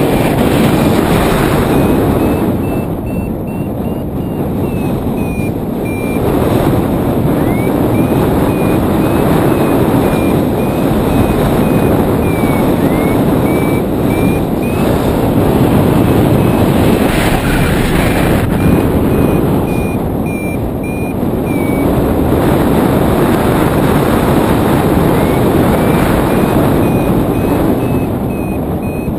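Wind rushing over the camera microphone in paraglider flight, rising and falling in slow swells. Through it a variometer beeps in runs of short high beeps whose pitch steps and glides up and down, with short pauses between runs: the vario signalling climb in lift.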